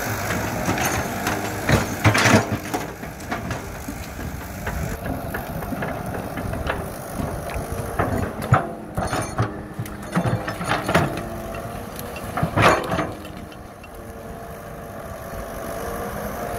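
Caterpillar E120B hydraulic excavator's diesel engine running steadily as the bucket digs through brush and roots, with several sharp cracks and knocks, loudest about two seconds in and again a few seconds before the end.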